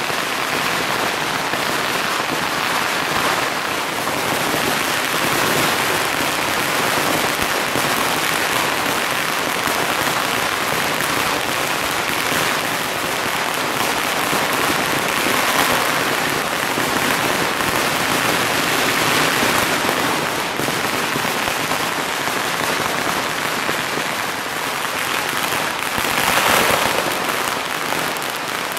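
Long strings of firecrackers going off in a continuous, dense, rapid crackle, with a louder flurry of bangs near the end.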